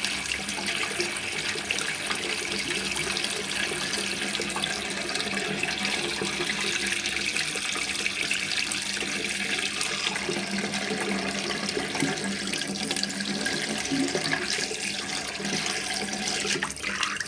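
Tap water running steadily and splashing into a basin, an even rushing hiss at a constant level. Just before the end the sound rises briefly in pitch.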